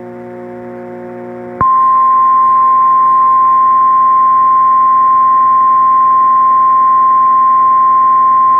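A lower buzzing tone, then about 1.5 s in the Emergency Alert System's 1050 Hz attention tone starts and holds, loud and steady, before the spoken severe thunderstorm warning. Faint higher copies of the tone come from clipping in the recording.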